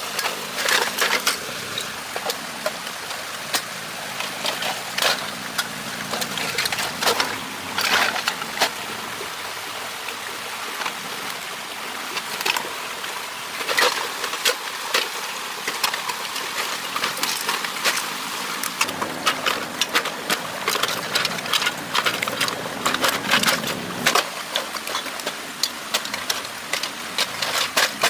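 Rushing floodwater, a steady gush broken by many sharp knocks and crackles throughout.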